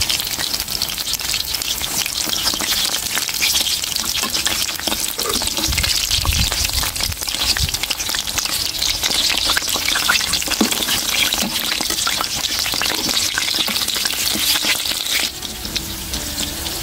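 Pork-stuffed tofu pieces sizzling and crackling steadily in hot oil in a frying pan, a little quieter for the last second or so.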